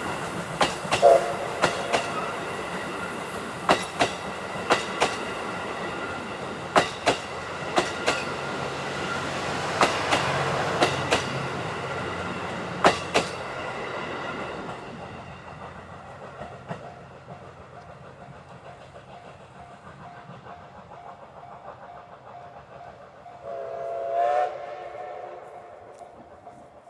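A steam-hauled passenger train rolling past, its wheels clicking over rail joints, the clatter fading as the train draws away. A brief tone sounds about a second in, and near the end there is a loud blast of the D51 steam locomotive's whistle.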